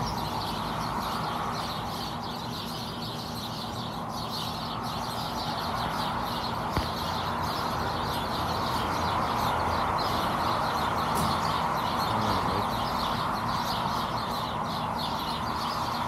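A flock of birds in a tree chirping nonstop in a dense, overlapping chorus, over a steady low hum.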